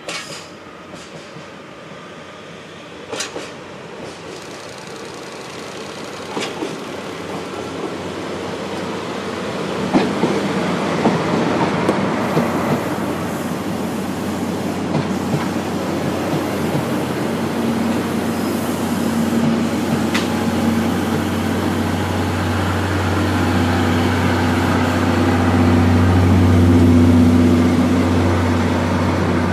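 A train hauled by a JNR Class DE10 diesel-hydraulic locomotive approaches and passes. Its wheels clatter over the rail joints, and a steady low diesel engine drone builds up and is loudest near the end.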